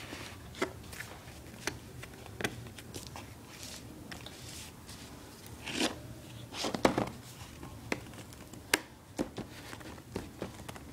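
Hands working at a tight-fitting Nexus 7 tablet box, trying to get the lid open: scattered sharp taps and clicks with a few louder rustling scrapes about six to seven seconds in.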